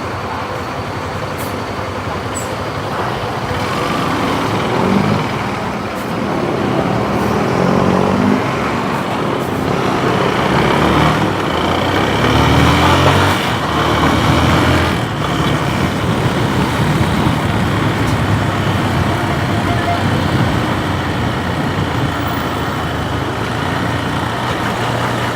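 Road traffic noise with vehicle engines, a steady road rumble in which an engine's pitch rises and falls a few times. It is loudest around the middle.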